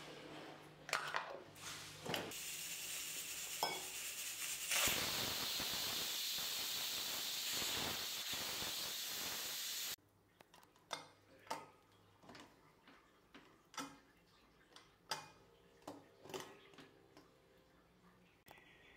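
Pressure cooker whistle: steam jetting out under the weight valve as a loud, steady hiss, which starts about two seconds in, grows louder about five seconds in and cuts off suddenly about ten seconds in, the sign that the cooker has come up to full pressure. Afterwards a few light clicks and taps of the metal cooker and lid.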